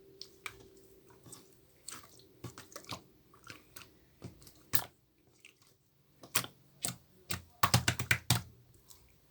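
Irregular sharp clicks and taps, some spaced out and a quick run of them about two-thirds of the way through, over a faint steady hum.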